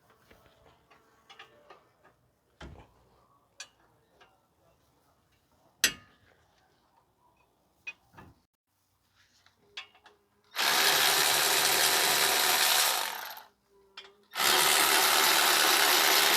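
A power wrench runs in two bursts of about three seconds each, backing out the two 17 mm caliper bracket bolts on a front wheel hub. Before them come scattered clicks and one sharp metal clink of tools being handled.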